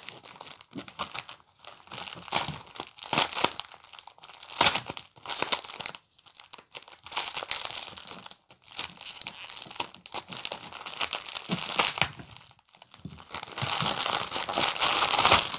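Wrapping of a small mail-order parcel being torn open and crumpled by hand: irregular crinkling and tearing with short pauses, getting denser and louder near the end.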